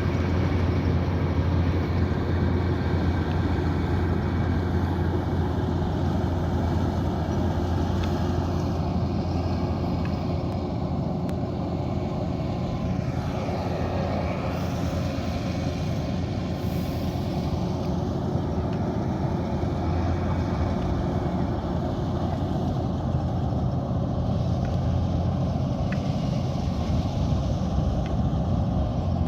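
Kubota DC108X combine harvester's diesel engine and machinery running steadily, a constant low drone with an even mechanical noise over it.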